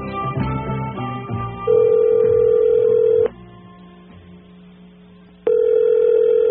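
The end of a guitar music sting, then a telephone ringback tone on the line: a steady tone twice, each about a second and a half long, with about two seconds of quiet between.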